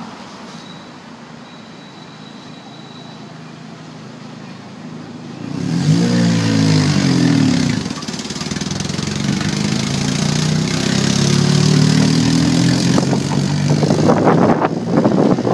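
Street traffic: about five seconds in, a car engine grows loud and speeds up, its pitch gliding and then rising steadily. Near the end a tram's wheels clatter over the rail joints.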